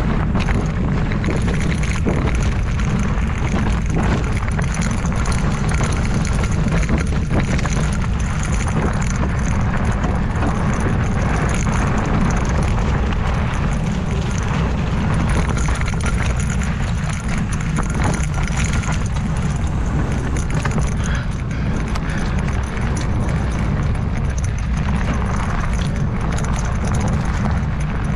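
Wind rushing over the microphone and tyres on a dirt trail during a fast mountain-bike descent, with scattered knocks and rattles from the bike over rough ground.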